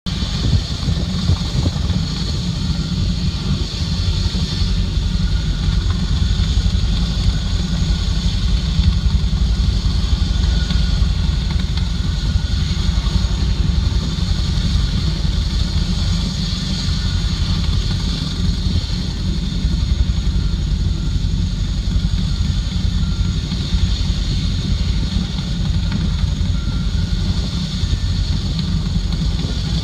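CH-47 Chinook tandem-rotor helicopter running on the ground with its rotors turning: a steady low rumble with a rapid flutter.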